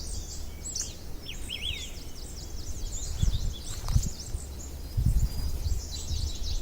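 Several songbirds chirping and trilling in quick, repeated high notes. Under them runs a low rumble, with a few brief low thumps about halfway through and near the end.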